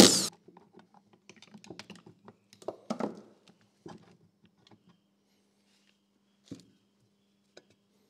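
A cordless power driver spins briefly on a bolt of a metal handformer's top plate, the loudest sound. It is followed by scattered light clicks and knocks of metal parts being handled as the plate is lifted off, with one more knock about six and a half seconds in.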